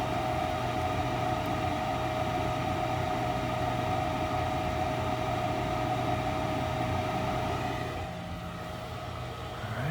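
Gas furnace motor running with a steady whir and a constant whine, dropping in level about eight seconds in.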